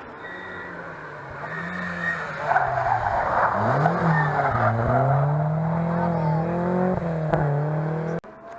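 A historic rally car's engine through a hairpin: the revs drop with a quick blip, a burst of tyre noise comes as the car slides through the turn, then the engine pulls away with revs climbing and holding. The sound cuts off abruptly near the end.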